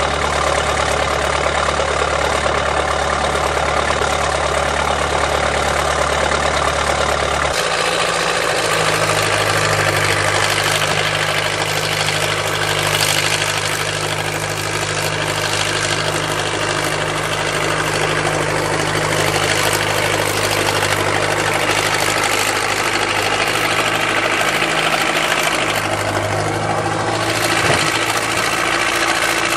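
Backhoe engine running steadily, its speed stepping up about a third of the way in and dipping briefly near the end.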